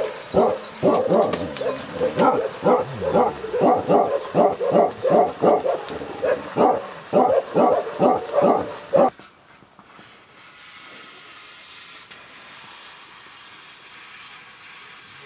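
A dog barking over and over, about two barks a second, breaking off abruptly about nine seconds in. After that only a faint steady hiss remains.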